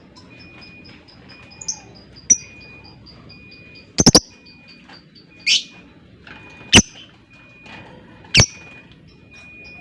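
Lovebirds calling: loud, shrill, very short chirps about every second or two, with a rapid triple about four seconds in. Underneath runs a fast, even series of faint high ticking notes and a thin repeating tone.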